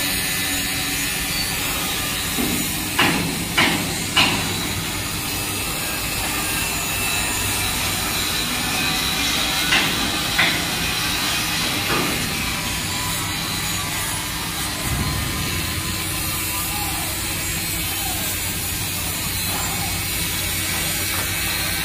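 Shipyard work noise on a steel hull: a steady industrial din with sharp metal strikes, three in quick succession about three seconds in and a few more around ten seconds.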